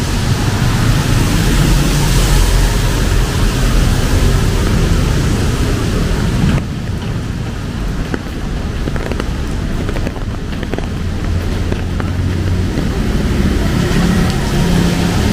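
Rain and traffic on a wet city road: a steady hiss of rain and tyres with the low hum of passing vehicle engines, heaviest near the start and again near the end. The high hiss dulls abruptly a little before halfway through.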